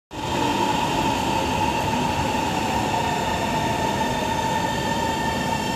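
Metro train coming into the platform behind the platform screen doors: steady running noise with a steady high whine over it.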